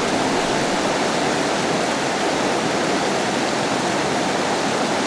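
Steady rush of flowing river water, even and unbroken.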